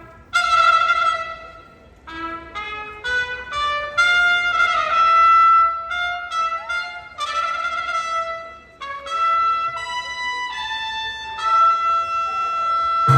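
A solo trumpet plays an unaccompanied melodic passage, one note after another, with a short pause about two seconds in, and ends on a long held high note.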